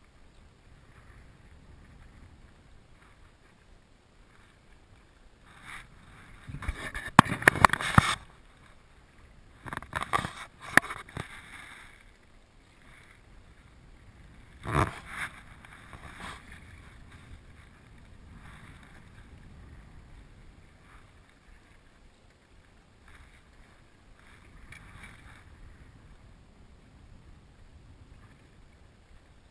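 Knocks and clatter on a bass boat's deck while a fish is fought and landed: a loud cluster about six to eight seconds in, more around ten to eleven seconds, and one sharp knock near fifteen seconds. Between them, low steady wind and water noise.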